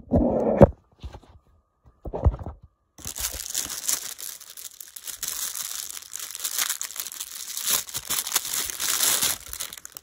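A couple of handling knocks, then from about three seconds in a thin clear plastic bag crinkling and rustling steadily as an AC adapter is worked out of it.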